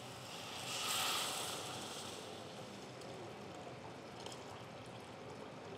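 Boiled milk poured in a steady stream into a steel pot of hot fried masala and potato: a faint splashing hiss that swells about a second in, then settles to a quiet, even pour.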